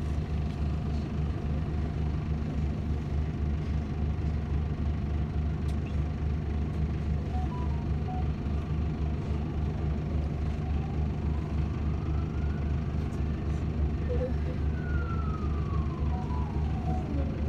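City bus engine running with a steady low, pulsing rumble, heard from inside the passenger cabin. From about ten seconds in, a distant siren rises slowly in pitch, falls, and starts rising again near the end.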